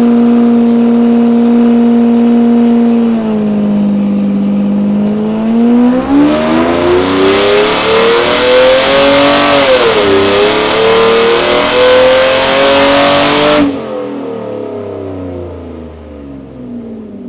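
Mercedes SL600's V12 running on a chassis dynamometer without its rear muffler. It holds a steady speed, then climbs in pitch under a full-throttle pull from about six seconds in, with a brief dip near ten seconds. Near fourteen seconds the throttle is lifted suddenly and the engine winds down.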